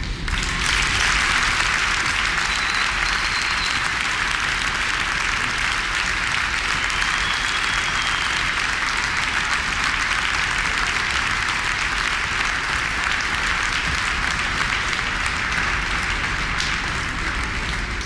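Crowd applauding at length, starting within the first second and easing off slightly near the end.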